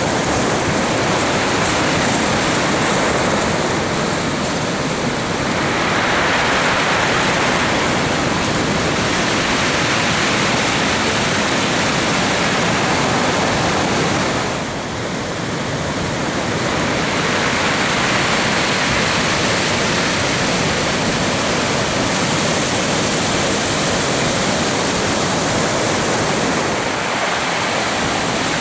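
Heavy surf: waves breaking and washing in a continuous rush of noise that swells and eases, dipping briefly about halfway.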